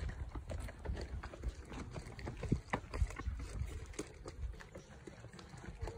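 Footsteps on a paved trail: a run of irregular light taps over a low rumble.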